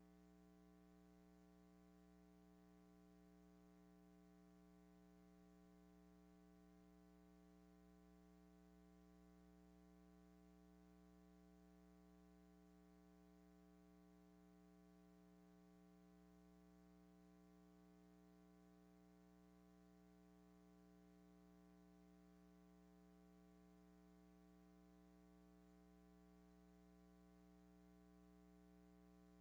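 Near silence: only a faint, steady electrical hum with light hiss, as the film has no soundtrack.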